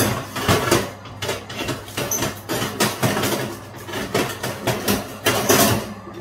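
Metal baking tray scraping and clattering against the oven's wire rack and side runners as it is pushed into the oven, an uneven run of scrapes and knocks that is loudest a little past five seconds in.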